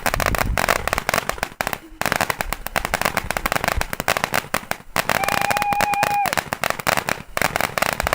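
Firecrackers going off in a long run of rapid crackling pops, with a few brief pauses. About five seconds in, a steady high tone is held for just over a second.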